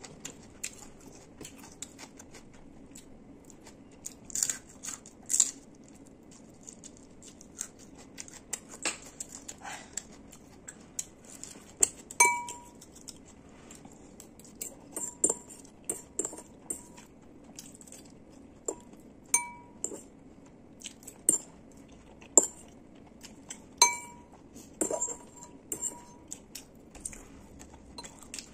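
Metal fork clinking and scraping against a ceramic noodle bowl, with close mouth sounds of eating. Short clicks come throughout, and from about halfway several of the taps ring briefly with a clear pitch.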